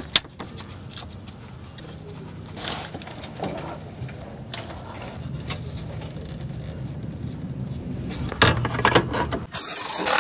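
Clicks, knocks and light rattles of the car's evap canister and its plastic mounting being refitted by hand, over a steady low hum, with a louder rustle near the end.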